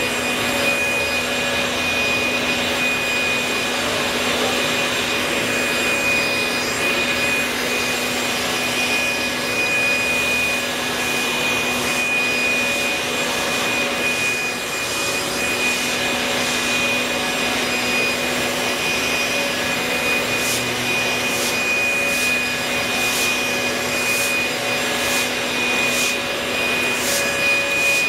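Leaf blower running steadily with a constant whine, blowing rainwater off wet asphalt, while squeegees and push brooms rub over the pavement. From about two-thirds of the way in, short sharp ticks come every second or so.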